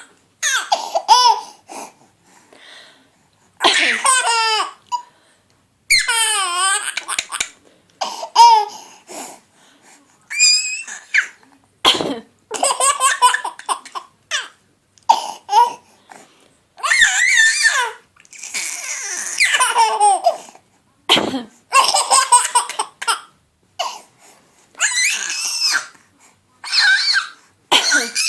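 A baby boy laughing in repeated fits, set off by a woman's coughs that come between them.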